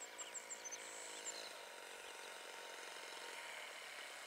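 Distant radio-controlled model airplane's glow engine running steadily overhead at low throttle, a faint even drone. Small birds chirp quickly and high-pitched during about the first second and a half.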